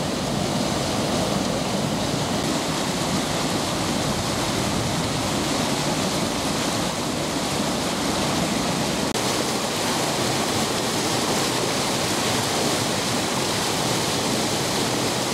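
Water pouring over a concrete canal weir: a steady, loud rush of falling water, broken for an instant about nine seconds in.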